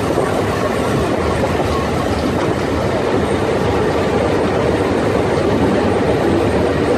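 Historic train hauled by E-626 and E-428 electric locomotives running along the track, a steady noise of wheels on rails heard through an open carriage window.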